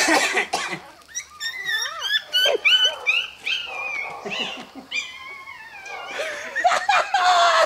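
Newborn Rottweiler puppies squealing and crying: a rapid string of short, high-pitched cries, mostly falling in pitch, several a second. A rush of noise comes at the start and again near the end.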